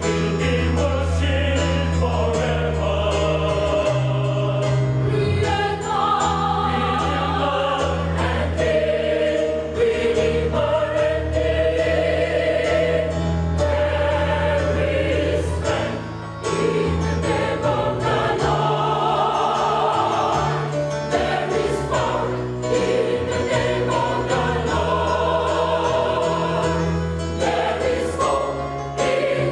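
Mixed choir of men and women singing a sacred song in harmony over sustained low bass notes, with brief breaks between phrases about halfway through and near the end.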